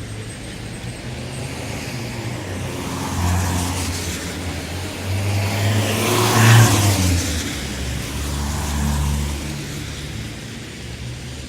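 Town traffic on a wet road: cars driving past with tyres hissing on the wet surface over low engine noise. The loudest vehicle passes about six and a half seconds in, swelling and then fading, with others passing before and after it.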